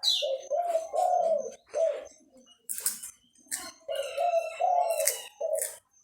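A dove cooing in two phrases of repeated low coos, one right at the start and one after about four seconds. Sharp crunches from cracker-eating come in between and over the coos.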